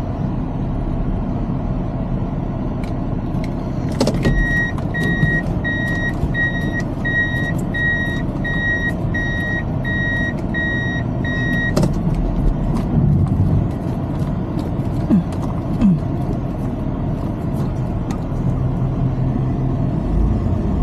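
Steady road and engine noise inside a moving Toyota's cabin. From about four seconds in to about twelve seconds in, a high electronic warning beep sounds about twice a second, starting and stopping with a click.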